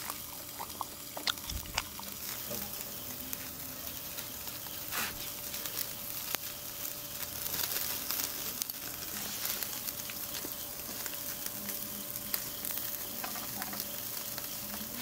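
Beef rib-finger meat (galbi-sal) sizzling on a grill's wire grate: a steady crackling hiss with small pops, and a few sharp clicks in the first seconds.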